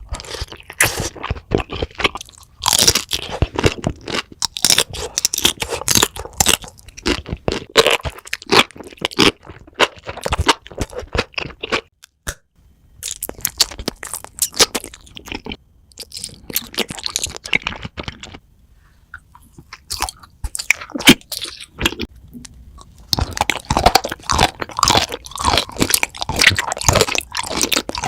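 Close-miked crunching and chewing of crisp food, in long runs of sharp crackly bites with a few short pauses between mouthfuls.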